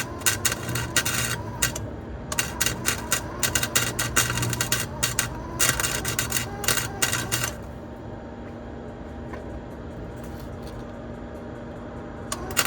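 Wire-feed welder crackling as it lays a weld on a car's exhaust pipe, in runs of a couple of seconds with short breaks. It stops about seven and a half seconds in, leaving a quieter hum, and starts again right at the end.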